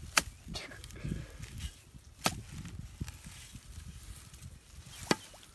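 A wooden-handled digging tool chopping into a grassy mud bank: three sharp strikes a couple of seconds apart.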